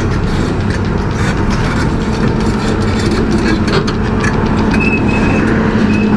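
Steady engine hum and road noise of a vehicle driving in traffic.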